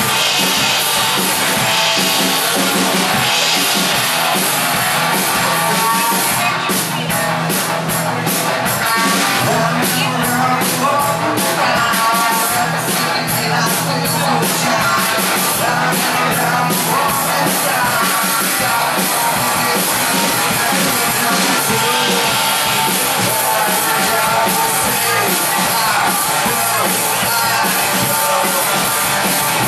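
Rock band playing live: electric guitar and drum kit with a lead vocal into a microphone. There is a run of quick cymbal hits in the middle.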